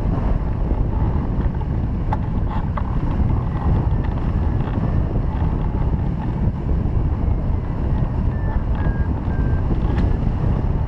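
Wind from a hang glider's flight buffeting a glider-mounted camera's microphone: a steady wind rush, heaviest in the low end, with no break.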